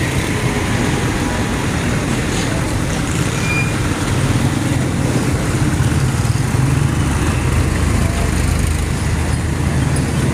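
Busy street traffic: engines of motorcycles, auto-rickshaws and small trucks running past on a wet, muddy road. A deeper engine rumble is loudest in the middle as a small cargo truck passes close.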